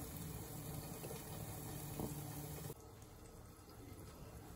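Chicken liver frying in oil in a covered pan on a gas stove: a steady sizzle under the glass lid, which cuts off abruptly about two-thirds of the way through, leaving quieter room sound.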